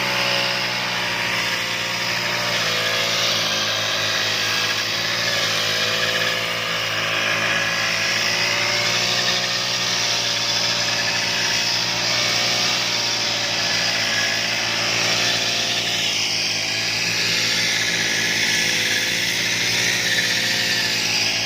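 Petrol grass-cutting machine running continuously while cutting grass, its engine pitch wavering slightly up and down with the load.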